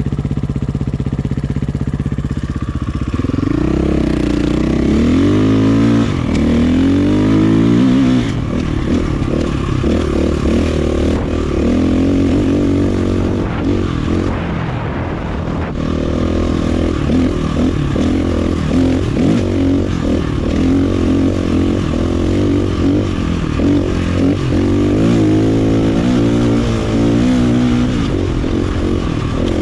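A 2019 KTM 450 EXC's single-cylinder four-stroke engine, fitted with an aftermarket power kit, idles steadily for about three seconds, then revs up and down again and again as the dirt bike is ridden.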